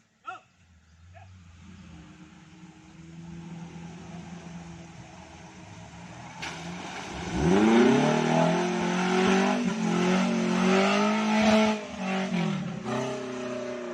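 Suzuki Jimny LJ80 engine, growing louder as it nears, then revved hard about seven seconds in and held at high revs for several seconds before easing off near the end.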